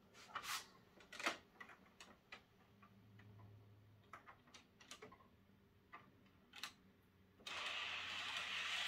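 Light plastic clicks and taps of a model freight wagon's wheels and body being set onto model-railway track, scattered irregularly. A louder, steady rushing noise comes in for the last second and a half.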